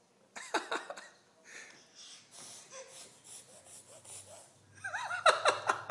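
A baby sniffling and breathing in a run of short, breathy snorts. Short bursts of voice come about half a second in and again near the end, the last the loudest.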